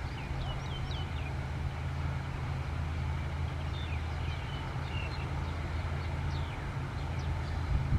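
Caterpillar 140H motor grader's diesel engine running with a steady low hum. Birds chirp briefly over it several times.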